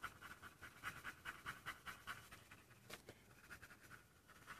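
Faint, quick scratching of a colored pencil rubbed back and forth on paper, several strokes a second, as blue shading is blended out.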